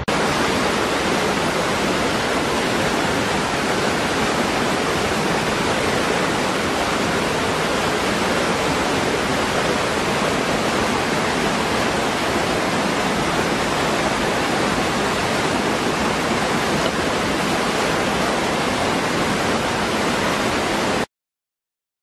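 Steady rush of a small waterfall pouring over rocks into a pool, cutting off suddenly near the end.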